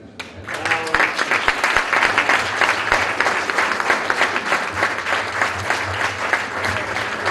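A room of seated guests applauding, the clapping coming in about half a second in and keeping up steadily.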